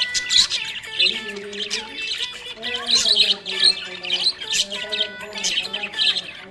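Small pet parrots chirping and squawking in quick, busy bursts, with a low, slowly changing tune underneath.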